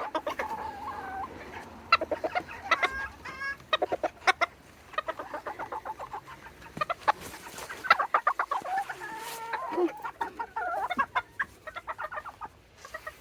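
Serama bantam chickens clucking and calling, in quick runs of short notes with some longer drawn calls.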